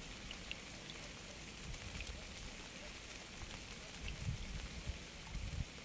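Steady rain falling, an even hiss with scattered single drops ticking, and a few soft low rumbles near the end.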